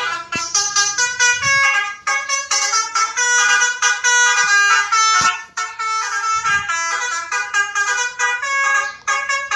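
A fast melody of short, reedy, horn-like notes, several a second, in the style of the Indonesian 'telolet' bus-horn tune. A few low bumps sound under it.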